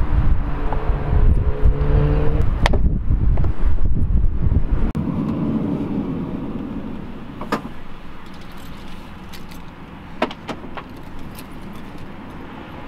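A vehicle rumbles past for the first five or so seconds while keys jangle at the campervan's side door. After that, several sharp separate clicks and knocks come from the door and keys being handled.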